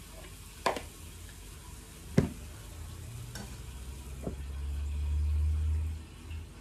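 Pancake batter sizzling faintly in an oiled frying pan while a metal spoon clinks sharply against the batter bowl, twice, the second clink the loudest. A couple of lighter taps follow as a lid goes on the pan, then a low rumble swells and stops about six seconds in.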